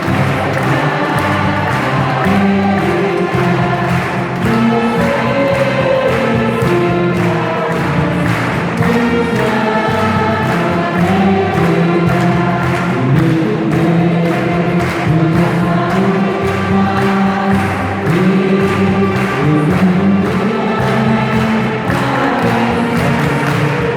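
A song with a group of voices singing over instrumental accompaniment, carried by a steady beat.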